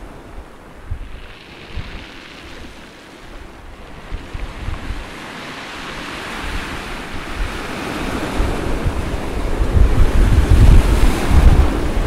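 Ocean surf breaking and washing over a pebble beach, with wind gusting on the microphone; both grow steadily louder, strongest near the end.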